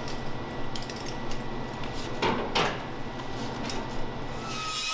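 Several sharp knocks and clatters over a steady low hum, the loudest two about two and a half seconds in.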